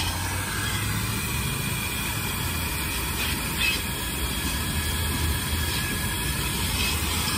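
Car-wash vacuum hose running steadily, with a low hum under a steady high whine as the car's interior is vacuumed.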